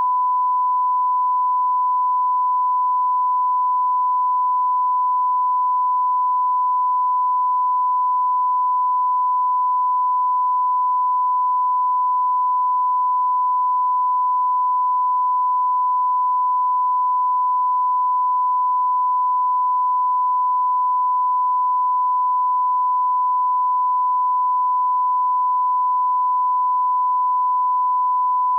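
A continuous censor bleep, a single steady tone at about 1 kHz held without a break, covering swearing.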